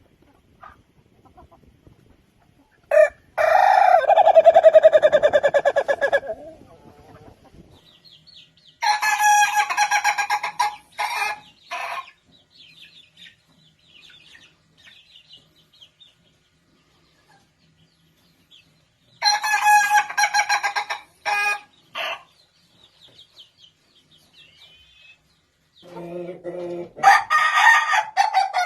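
Roosters crowing: four long crows spread across the stretch, the first the loudest, with softer clucks in the pauses between.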